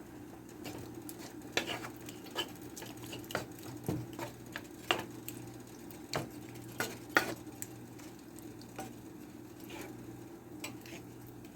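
A utensil stirring meat sauce in a pan, clicking and scraping against the pan at irregular intervals, over a steady low hum.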